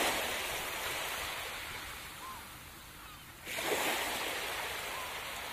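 Ocean surf: one wave washes in and fades away, then another breaks about three and a half seconds in and slowly recedes.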